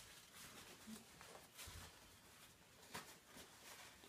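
Near silence: room tone, with a couple of faint clicks.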